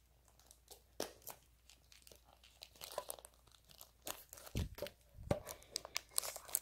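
Plastic wrap on a small cardboard blind box crinkling and tearing as fingernails pick at it, in scattered crackles and clicks, with a couple of low thumps from handling the box about four and a half and five seconds in.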